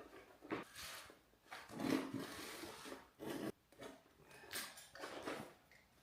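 Sheet vinyl flooring being trimmed and handled: a run of irregular scrapes and rustles, some half a second or so long, the loudest about two seconds in.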